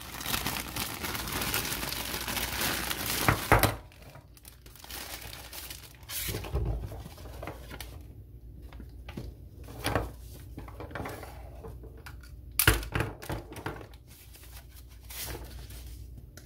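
Clear plastic packaging bag crinkling and rustling as it is pulled open and off coiled test leads, dense and continuous for the first few seconds. After that, quieter rustling of wrapping with a few short knocks as the leads and probes are handled.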